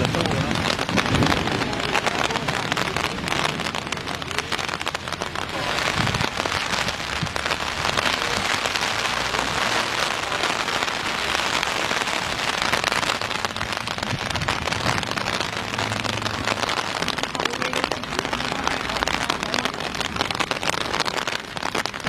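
Heavy rain falling and pattering on surfaces, a dense, even hiss of drops.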